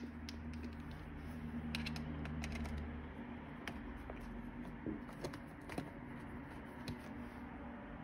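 Small scattered clicks and scrapes of a plastic window tilt latch and its screws being handled and pressed into place on a vinyl sash, over a low steady hum.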